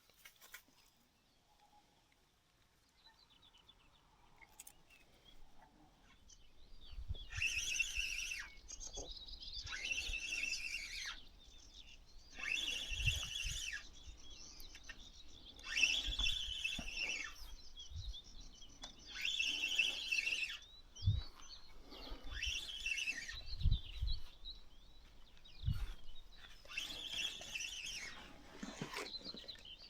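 A songbird singing short, chirpy phrases, repeated about every three seconds after a quiet first few seconds.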